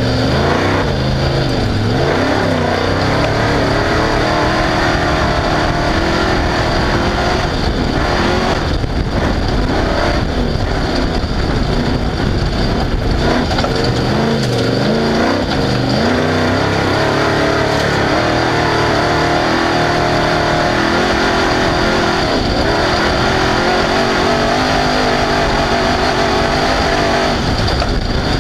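Off-road race vehicle's engine running hard, its pitch rising and falling again and again as it revs up and backs off, over steady noise from the terrain and wind.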